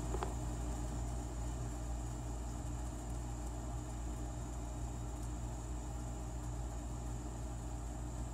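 Steady low mechanical hum, unchanging, with a faint high steady whine above it.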